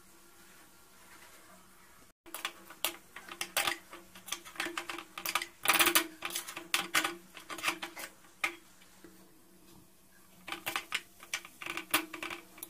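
Metal spoon scraping and clinking against an aluminium kadhai while mixing mashed spiced potato filling with chopped coriander. The clatters come in quick, uneven runs, starting about two seconds in.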